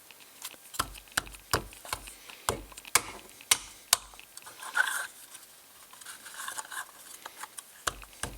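Small wooden kit parts clicking and knocking together as they are handled and pressed into place, about a dozen sharp taps in the first half, then softer scraping and rubbing.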